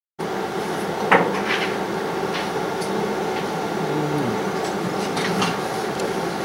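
Steady equipment hum with several faint steady tones, broken by a few short clicks and knocks, the loudest about a second in, and a brief falling tone about four seconds in.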